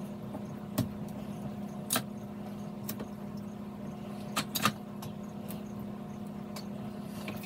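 Hands handling heat-resistant tape and a glass cutting board: scattered light clicks and taps as tape pieces are pulled off and pressed down, over a steady low hum.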